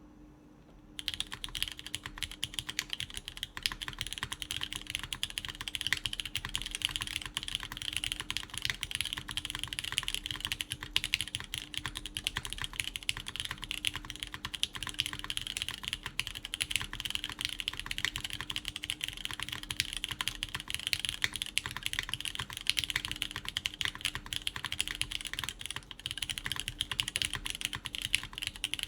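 Continuous fast typing on a QK Neo80 Cu mechanical keyboard: lubed Cherry MX Orange switches in a PEI plate, silicone gasket mount, with GMK Carbon keycaps. It gives a dense stream of key clacks that starts about a second in.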